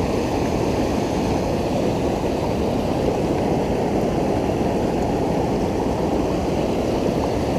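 Steady rush of river water pouring through rapids, an even noise with no distinct splashes.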